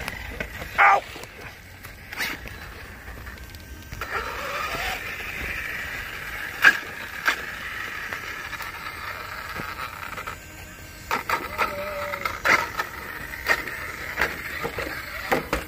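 Electric motor and drivetrain of a radio-controlled trail truck whining as it drives. The whine holds steady for several seconds in the middle, with sharp clicks and knocks scattered throughout.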